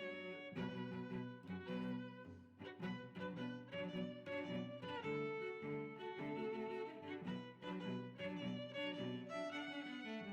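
Background music played by bowed strings, with violin and cello, in short notes that change every fraction of a second.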